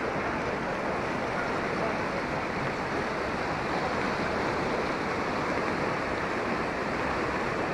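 Muddy floodwater rushing and churning across a flooded field, a steady, unbroken wash of water noise.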